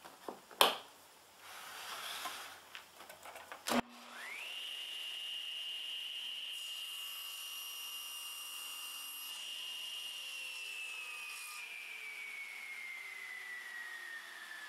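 Toggle clamp clicks and knocks, then the table saw is switched on with a sharp click about four seconds in, its whine rising quickly to a steady pitch. A brief hiss as the blade trims the small clamped workpiece on the sled, then the saw is switched off and the whine falls slowly as the blade coasts down.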